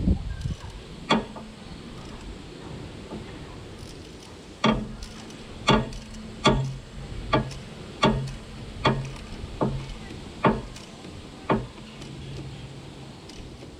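Hand ratchet wrench at work on the engine: a run of sharp metallic clicks, roughly one a second through the middle, as parts are tightened down.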